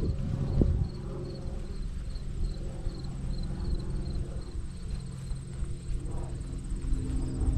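A field cricket chirping in a regular series of short high chirps, about three a second, fading out about halfway through, over a faint steady high trill. Underneath is a low rumble with a few thumps near the start.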